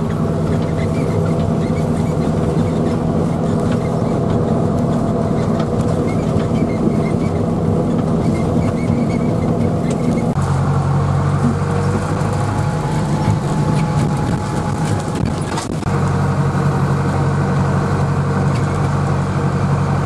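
Tractor engine running steadily under way, heard from inside the cab. Its note shifts about halfway through and dips briefly a few seconds later.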